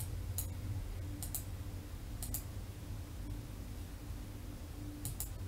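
Computer mouse clicking: a single click, then three quick pairs of sharp clicks, the last pair near the end, over a low steady hum.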